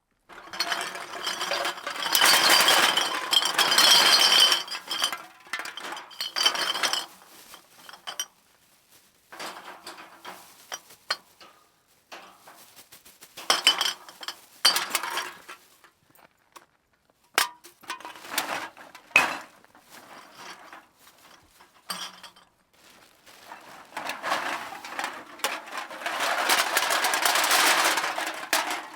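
A bag of cans being dumped out again and again: bursts of cans clattering and clinking against each other. There is a long burst at the start, shorter ones in the middle with a few separate sharp knocks, and another long burst near the end.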